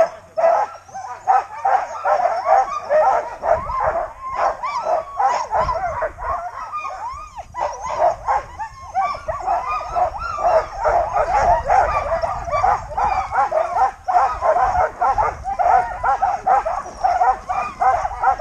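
A team of sled dogs barking, yipping and whining excitedly, many dogs at once in a continuous chorus. A low rushing noise joins in after about three and a half seconds.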